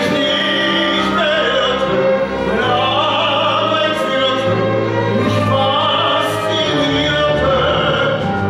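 A man singing a musical-theatre song in German over orchestral accompaniment.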